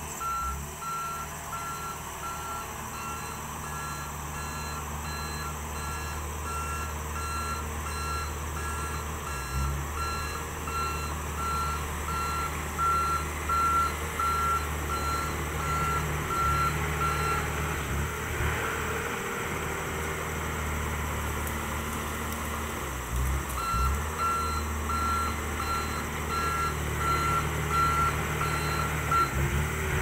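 Komatsu D31EX crawler bulldozer running, its reversing alarm beeping about twice a second as it backs up. The beeping stops for several seconds past the middle while the engine keeps running, then starts again.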